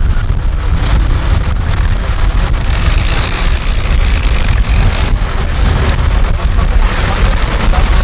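Vintage tractor engine running steadily, with a heavy low rumble.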